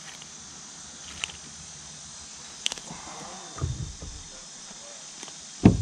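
Steady high-pitched buzz of insects such as crickets or cicadas. A few sharp clicks come through it, with low thuds about three and a half seconds in and a louder thud near the end.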